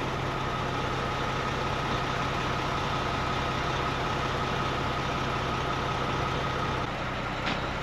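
ERF EC11 lorry's Cummins M11 straight-six diesel running steadily at low revs, heard from inside the cab, with a thin steady high whine over it.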